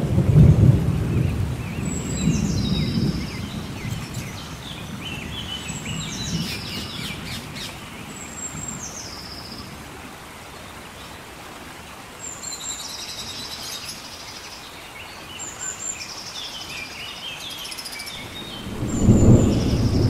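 Thunderstorm: steady heavy rain with thunder, a loud low rumble right at the start that rolls on for a few seconds and another near the end. Birds call over the rain in short, high phrases that step downward in pitch, repeated every few seconds.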